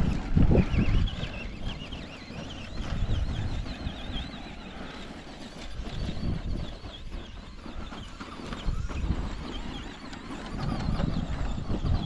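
Wind gusting on the microphone, with the thin whine of a Traxxas Stampede 2WD RC truck's electric motor rising and falling as it drives up the hill.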